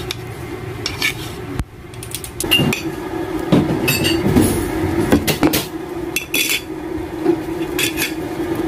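Metal fork clinking and scraping against a ceramic plate while cutting into a boiled saba banana, in scattered sharp clicks, over a steady low hum.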